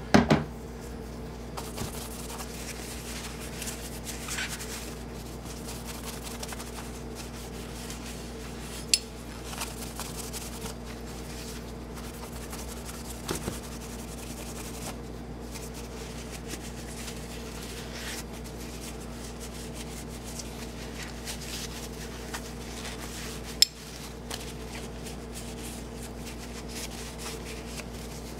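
A paper towel wetted with acetone rubbing over a gun-blued steel pistol slide, wiping off the bluing to stop its reaction, with a few sharp clicks as the metal is handled: the loudest are just at the start and about nine and twenty-four seconds in. A steady low hum runs underneath.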